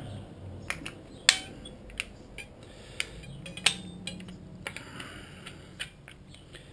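Drum brake shoes and their steel return springs being handled and fitted together: scattered light metallic clicks and clinks, a few sharper ones with a short ring.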